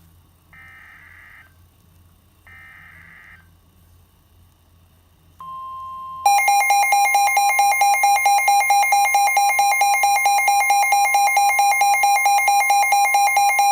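Emergency Alert System tornado warning tones: two short, quiet electronic data bursts of the alert header, then about five seconds in a single steady tone starts, and a second later the loud two-tone EAS attention signal joins it and holds steady.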